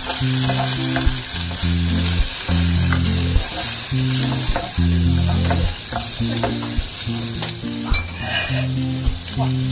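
Dried oysters sizzling as they fry in hot oil in a small saucepan, stirred with a wooden spatula that knocks against the pan now and then.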